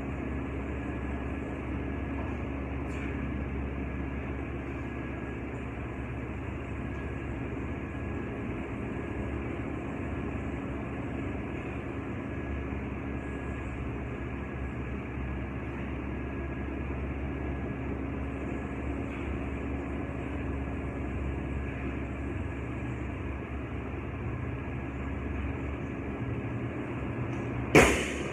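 A steady mechanical hum fills the room. Near the end there is a loud bang as a barbell loaded with bumper plates is dropped onto the rubber gym floor.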